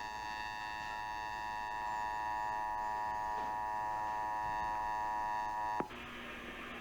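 Emergency Alert System two-tone attention signal, a steady, harsh dual tone with many overtones, cutting off abruptly with a click about six seconds in. Off-air radio hiss with a steady low hum follows.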